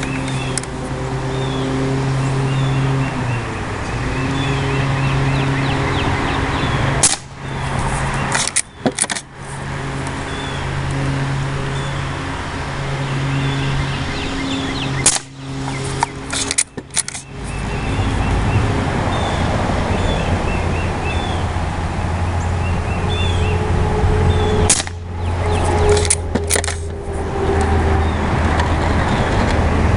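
A few sharp pops from a CO2 lever-action BB rifle, in pairs a second or two apart, about a third, halfway and near the end of the way through. A steady engine drone from a vehicle or machine runs underneath and drops lower in pitch a little past halfway. Birds chirp faintly.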